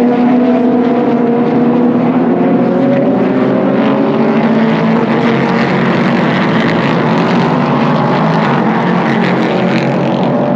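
Several race car engines running at once on a road course, their pitches rising and falling as the cars pass through a turn.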